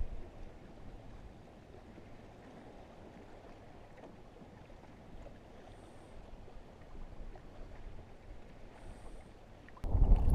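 Faint wind and water noise on a small fishing boat drifting on open water; near the end, loud wind buffeting the microphone starts suddenly.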